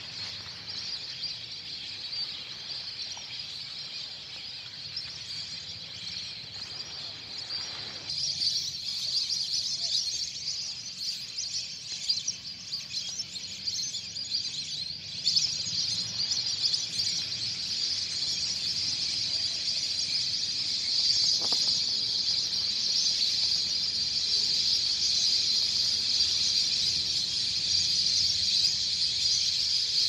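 A large flock of birds calling together, a dense continuous chorus of high chirps that swells louder about eight seconds in and again about halfway through.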